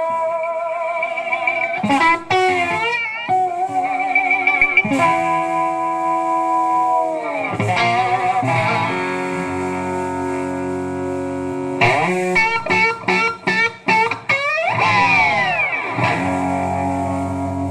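Electric guitar played alone in a slow blues intro, with wavering bent notes, long notes that slide downward, and a quick run of picked notes about twelve seconds in before chords ring out.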